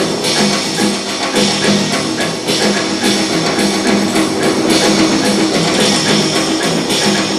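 Instrumental dance music with a repeating pattern of low notes and a steady beat.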